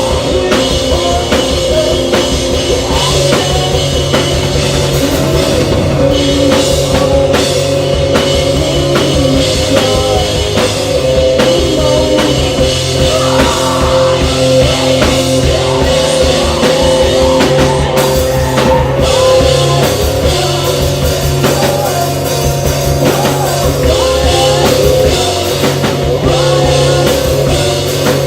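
Rock band playing live, loud and steady: electric guitars holding chords over bass and a drum kit, with some singing.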